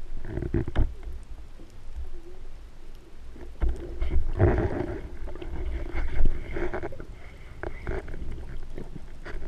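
Muffled underwater sound picked up through an action camera's waterproof housing: uneven rushing and gurgling water noise that swells and fades as the diver moves. Small clicks and knocks are scattered through it.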